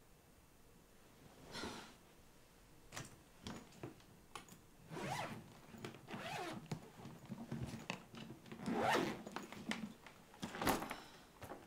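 Zipper on a red hard-shell suitcase pulled along in several short strokes, with a few light clicks and knocks of handling in between; the last two strokes are the loudest.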